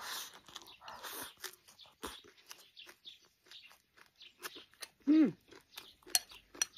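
Close-up eating sounds. Food is shovelled from the bowl into the mouth with a noisy slurp at the start, then comes wet chewing with small crunches of pickled sour long beans and chili. About five seconds in there is a short falling "mm" hum.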